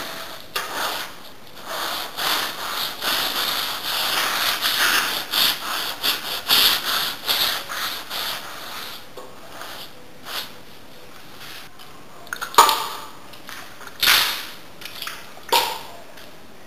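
Kitchen sponge scrubbing soapy water over a rough quartz-grain wall coating: quick back-and-forth rasping strokes that stop about halfway through. A few sharp knocks follow near the end.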